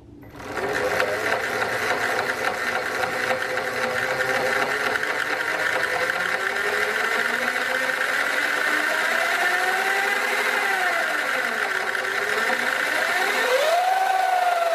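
Sur Ron Light Bee electric dirt bike running with its rear wheel spinning free. The drivetrain whines and rises and falls in pitch as the speed changes, over a repetitive clanking from the jackshaft, the sign of a worn jackshaft bearing. The clanking is said to get faster as the motor speeds up.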